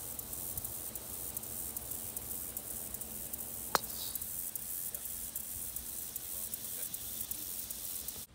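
A golf tee shot: one sharp crack of the clubhead striking the ball a little under four seconds in. Behind it runs a steady high buzz of summer insects.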